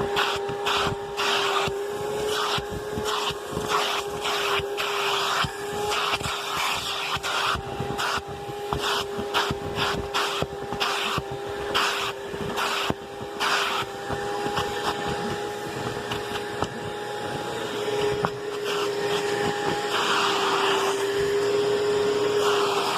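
Bagged vacuum cleaner running with a steady motor whine while its attachment is pushed back and forth over bedding, giving irregular rubbing and scraping strokes over the drone.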